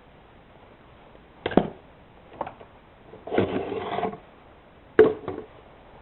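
A few sharp knocks and a short rasping rattle of nearly a second, from the McCulloch SE2000 chainsaw being handled; the engine is not running.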